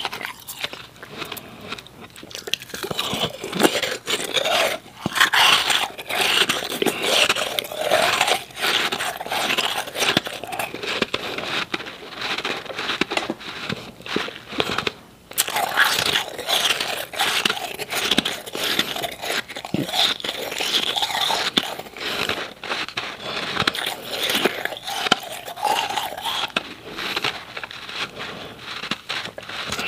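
Powdery ice being chewed close to the microphone: a continuous dense crunching and crackling, with a brief pause about halfway through.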